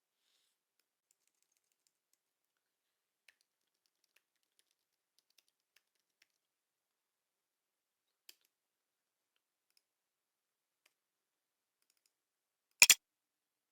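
Near silence broken by a few faint ticks, then two sharp clicks or knocks in quick succession near the end.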